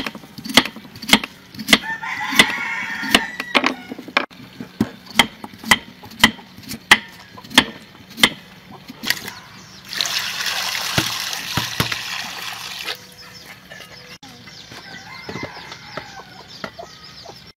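A large knife chopping through potatoes onto a wooden chopping block, a sharp knock about every 0.6 s for the first nine seconds, with a chicken calling for a moment near the start. About ten seconds in comes a loud steady hiss lasting about three seconds.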